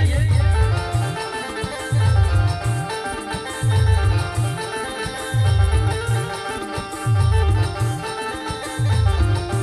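Instrumental timli dance tune from a village band: a busy, plucked-sounding melody line over deep booming drum beats that land about every second and a half to two seconds.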